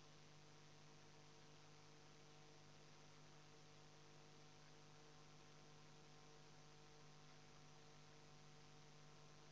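Near silence: a faint, steady electrical hum, one low tone strongest with fainter higher tones above it, over a light hiss.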